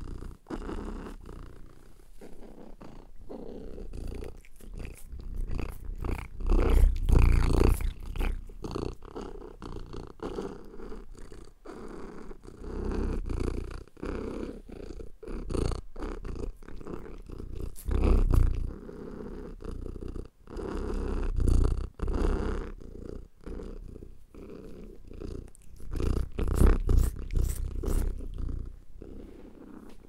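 Domestic cat purring, a continuous low pulsing purr that swells louder now and then.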